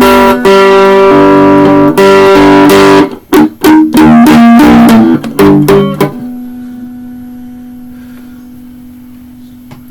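Electric guitar played through an amplifier: loud chords ringing for about three seconds, then a quick run of short picked notes, then a last note left to ring and slowly fade.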